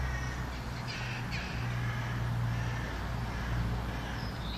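Bird calls about a second in, over a steady low rumble.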